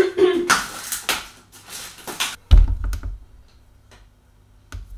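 About two seconds of rapid, clicky plastic rattling, then a dull thud as a plastic water bottle is set down on the glass cooktop. A light click follows near the end.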